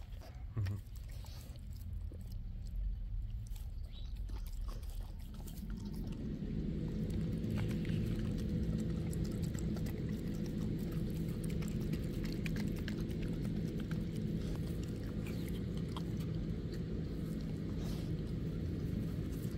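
A dog chewing and biting into a raw chicken quarter with yam puree, in short wet clicks and crunches. About six seconds in, a steady low hum starts and continues underneath.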